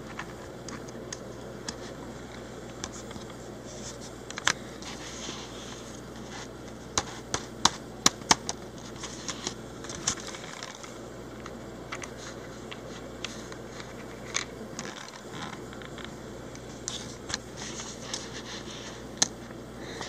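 Scattered light clicks and scrapes of small plastic TSA lock parts being handled and prodded with a screwdriver tip, over a steady low hiss. A cluster of sharper clicks comes about midway.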